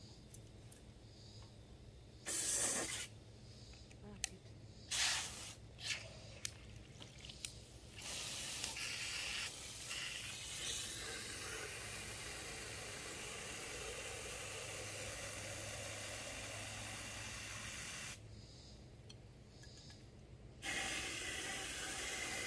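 Water from a garden hose spraying into empty aluminium soda cans to fill them: two short spurts in the first few seconds, then a steady hissing fill for about ten seconds that stops, and a second fill starting near the end.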